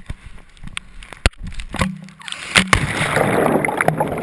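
Scattered knocks and clicks, then a person plunging into water: a little past two seconds in, a loud splashing, rushing wash of water builds and stays loud.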